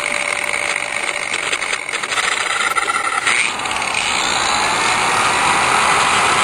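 Small handheld grinder running at speed, its bit grinding into a steering wheel hub. The steady high whine drops to a lower pitch about three seconds in.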